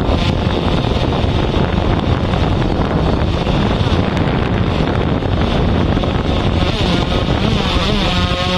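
Heavy wind buffeting on the microphone, a rough, rumbling rush with irregular gusts. Near the end a steady pitched hum slides in and holds.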